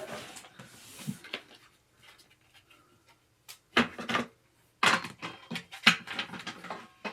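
Irregular clicks, knocks and clatter of hard parts being handled while a gaming chair is assembled, loudest in two clusters past the middle.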